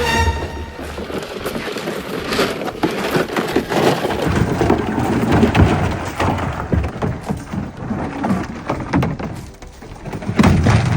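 Vines and brush being pulled and cut, with dense rustling and many small twigs snapping and crackling, and a heavier crunch near the end.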